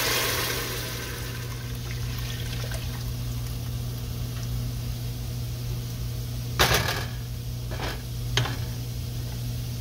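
Blended tomato salsa pouring into a pot of hot oil, its sizzle dying away over the first second or so, then liquid pouring into the pot. Two sharp knocks come later, a second and a half apart.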